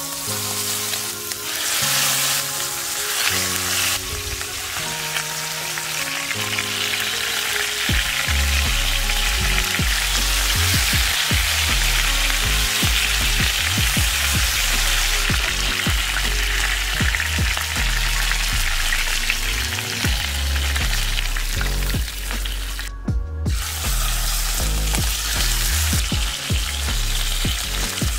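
Chicken thighs sizzling in hot oil as they sear skin-side down in a nonstick frying pan, a steady dense hiss of frying, with background music under it. The sizzle stops for a moment about three-quarters of the way through.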